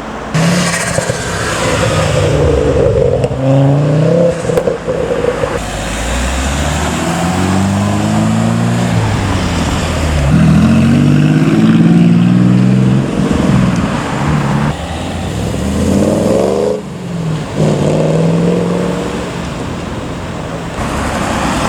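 Car engines accelerating hard, one after another, each note rising through the revs and dropping back at the gear changes, over road traffic noise.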